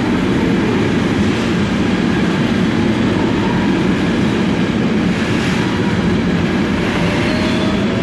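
Container freight train rolling past, with a steady rumble of the wagons' wheels on the rails and faint thin squealing tones near the end.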